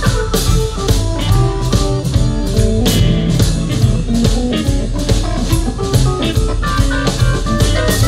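Live blues band playing an instrumental passage: a lead guitar line of short notes over electric bass and a steady drum beat.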